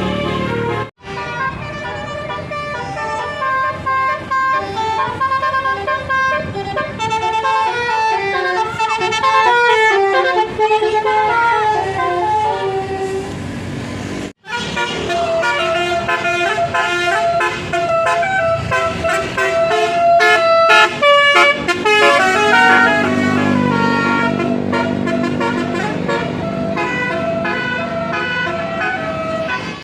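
Bus telolet horns of the multi-tone Basuri type playing stepping melodies, several notes sounding at once, over a low rumble. The sound cuts out abruptly twice: about a second in and near the middle.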